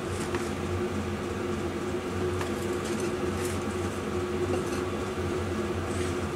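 Steady low mechanical hum with a fan-like hiss, and a few faint small clicks over it.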